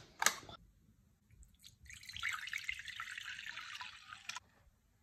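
Liquid poured into a bowl, a trickling pour lasting about two and a half seconds, starting about two seconds in, after a short click near the start.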